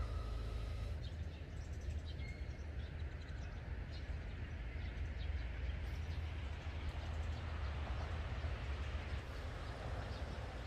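Outdoor background: a steady low rumble under a soft hiss, with a few faint, short bird chirps.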